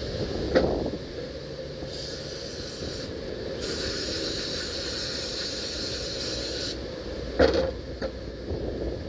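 Aerosol spray can spraying in two bursts: a short one about two seconds in, then a longer one lasting about three seconds. A sharp knock comes just before the spraying and another near the end.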